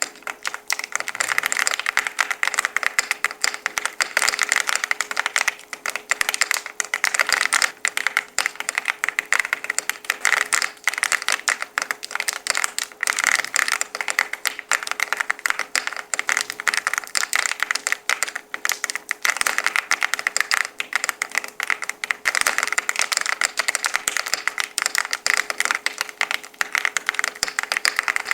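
Fast, continuous typing on a LEOBOG Hi98 mechanical keyboard with XVX Wave keycaps: a dense stream of key clacks with a faint steady hum underneath.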